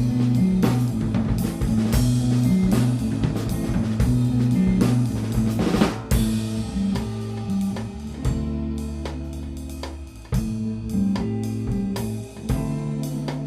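A live instrumental band plays a groove: a drum kit with kick, snare and rimshots drives a steady beat under sustained electric bass notes and guitar. A cymbal crash comes about six seconds in, followed by a long held low note.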